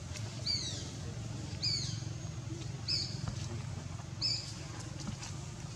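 A high-pitched animal call repeated four times, about a second and a quarter apart, each call falling slightly in pitch, over a steady low rumble.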